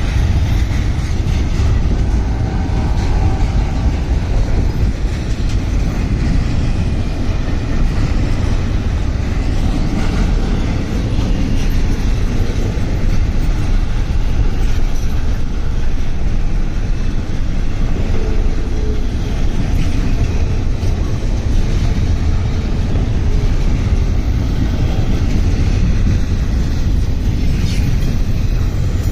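Freight train of tank cars and covered hoppers rolling past at close range: a steady, loud rumble of steel wheels on the rails.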